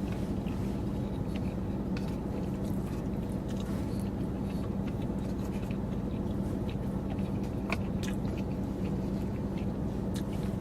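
A person chewing a mouthful of fried cauliflower rice and chicken, with soft wet mouth clicks, over a steady low hum.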